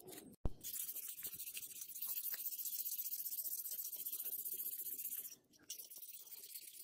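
Sandpaper rubbing back and forth along a white hammer handle by hand: a steady scratchy hiss. It breaks off about five seconds in and resumes more quietly. A single sharp click comes about half a second in.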